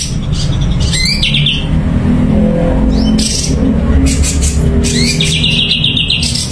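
Cucak cungkok songbird singing in two loud phrases, about a second in and again near five seconds in, each a rising note that breaks into a fast buzzy trill. A steady low rumble runs underneath.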